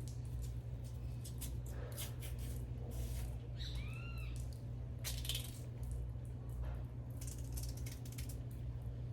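Knife and utensil clicks and knocks with soft scraping as the stringy core is cut out of boiled cassava, over a steady low hum. A brief high-pitched squeak rises and falls about four seconds in.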